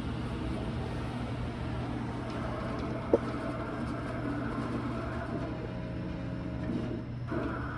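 CNC plasma table gantry driven by its stepper motors, tracing a cut path with the torch off: a steady low hum with whining tones that shift in pitch as the carriage changes speed and direction. A single sharp click about three seconds in.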